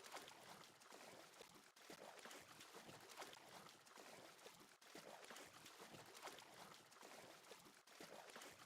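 Near silence: a faint, even crackling hiss with brief dropouts about every three seconds.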